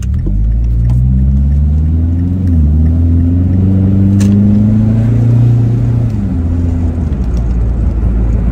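Mazda CX-7 GT Turbo's 2.3-litre turbocharged four-cylinder with its muffler deleted, heard from inside the cabin while driving. The exhaust note climbs under acceleration, dips briefly at a gear change about two and a half seconds in, climbs again, then falls away to a lower, steadier note as the throttle is lifted about six seconds in.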